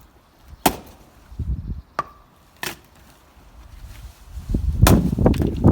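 Axe splitting firewood: four sharp chopping strikes, with lower knocking and clattering of wood between them and toward the end.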